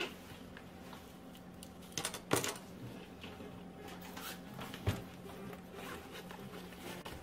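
Handling sounds of someone rummaging through trouser pockets and a backpack: rustling of cloth and fabric with scattered sharp clicks and knocks of small objects set down on a desk, the loudest cluster about two seconds in and another click near five seconds.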